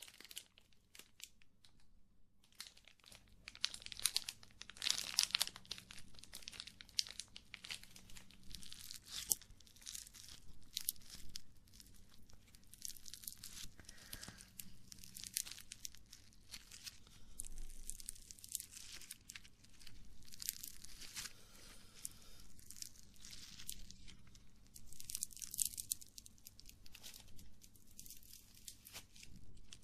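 Toy clay or putty squeezed, pulled and torn apart close to the microphone, making dense, irregular crackling and sticky clicking with swells every second or two.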